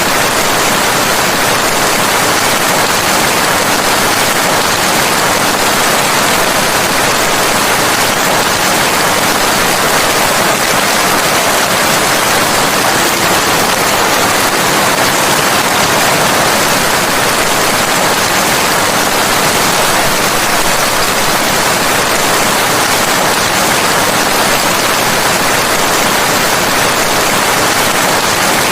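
Steady rain, an even unbroken hiss with no single drops or thunder standing out.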